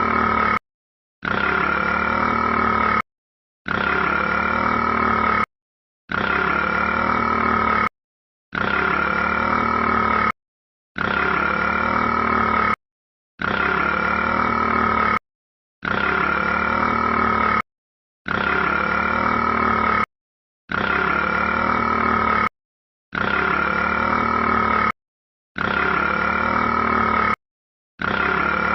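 A rat's burp sound clip played on a loop: the same burst of about two seconds repeats every two and a half seconds or so, with dead silence between repeats and a steady high tone running through each burst.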